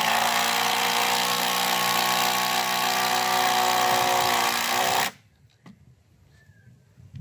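Makita cordless impact driver hammering steadily under load on a roofing screw for about five seconds, then stopping suddenly. It is running on speed setting three, not the intended four.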